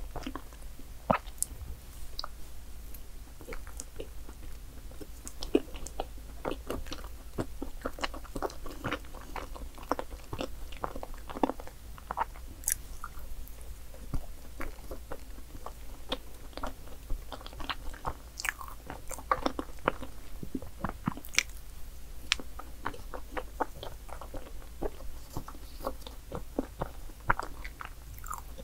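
Chewing and wet mouth smacks of a person eating dark chocolate layer cake, a dense run of short irregular clicks and smacks.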